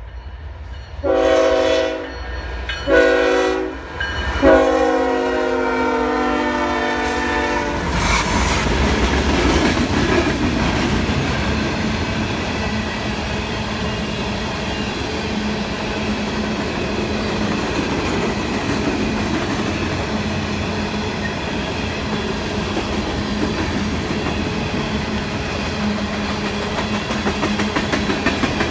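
CSX freight locomotive's air horn sounding three blasts, two short and then one long. The locomotive then passes and a string of coal hopper cars rolls by with a steady rumble of steel wheels on rail.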